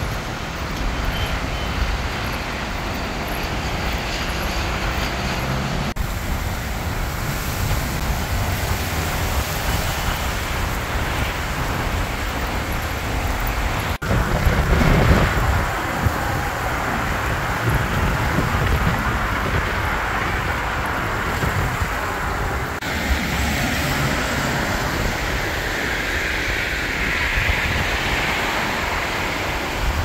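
Wind buffeting the microphone over a steady rush of road traffic. The sound changes abruptly three times, with a louder gusty stretch about halfway through.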